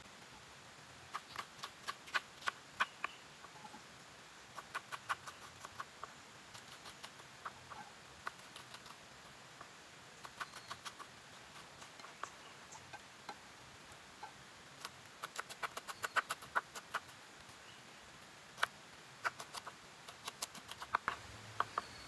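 Kitchen knife chopping shallots and green chili on a wooden cutting board: quick runs of sharp taps, several a second, broken by short pauses.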